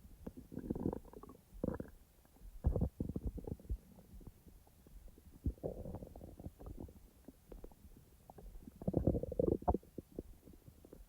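Human stomach gurgling and rumbling as it digests, in irregular bouts of bubbly gurgles and small pops, the loudest bout about nine seconds in.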